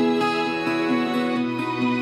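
Instrumental background music: a slow, gentle melody of held notes, with a low sustained note coming in partway through.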